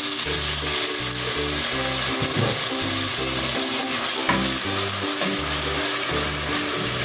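Raw minced meat frying in hot oil with onions in an enamel pot, sizzling steadily as a wooden spoon stirs it. Soft background music with a repeating low pattern plays underneath.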